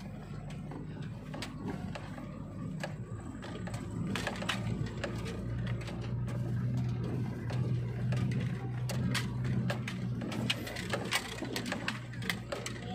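Vehicle heard from inside the cabin while driving a rough dirt track: a steady low engine and road hum that grows louder about four seconds in, with frequent irregular clicks and rattles as the vehicle jolts over the uneven surface.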